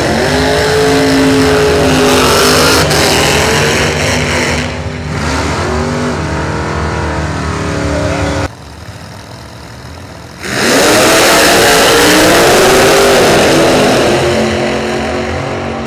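Drag-race cars launching side by side and accelerating hard down the strip, engine pitch climbing and falling as they rev through the gears. The sound cuts off abruptly about eight seconds in, and after a short lull another loud launch follows, fading as the cars go away.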